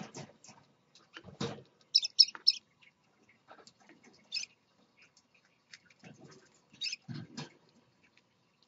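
Scarlet-chested parakeets pecking and shuffling in a seed dish: scattered soft clicks and scuffles, with a few short high squeaks about two seconds in and again near the end, and a couple of dull knocks.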